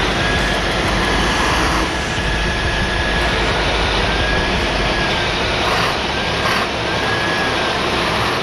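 Heavy diesel vehicle engines running hard with a dense, steady noise. A thin high whine sits over it, breaking off and coming back several times.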